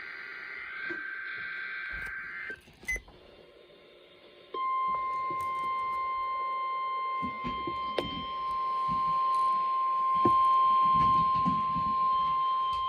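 NOAA Weather Radio test alert played through a receiver's speaker. It begins with the tail of the warbling SAME digital data burst, then after a short pause comes the steady 1050 Hz weather radio warning alarm tone, held for about nine seconds. This is the signal that automatically sets off specially built alert receivers.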